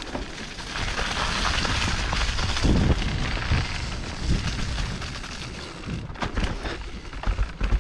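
Mountain bike descending a muddy dirt trail, heard from a camera on the bike: steady wind rush on the microphone and a low rumble of tyres rolling over dirt, with a quick run of knocks and rattles from the bike over bumps near the end.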